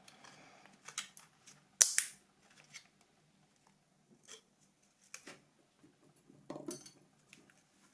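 Plastic casing of a Nokia 282 battery pack being pried and cut apart with a hand tool: scattered sharp clicks and cracks, the loudest a double crack about two seconds in.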